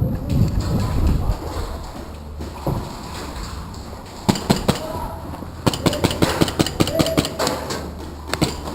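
Airsoft guns firing: two single shots about four seconds in, then a rapid string of about a dozen shots at roughly five a second, and one more shot near the end. A low rumble of movement comes at the start.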